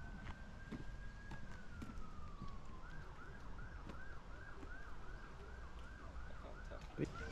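Faint emergency-vehicle siren: one long wail that rises, holds and glides down, then switches to a fast yelp of about three up-and-down sweeps a second.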